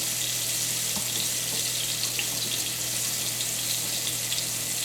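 Flour-dredged ground bison patties sizzling in a hot cast iron skillet: a steady hiss with scattered small crackles.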